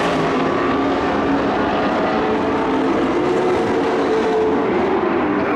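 Several race truck engines running at speed around a dirt oval, their pitches rising and falling as they circle the track.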